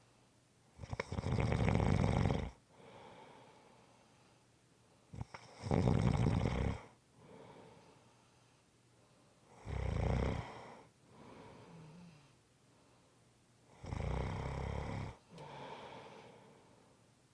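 A person snoring in a slow, regular rhythm: four loud snores about four seconds apart, each followed by a quieter, softer breath.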